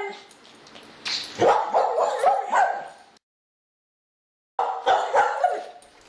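A dog barking in quick runs of short, sharp barks, with a sudden cut to dead silence for about a second and a half in the middle.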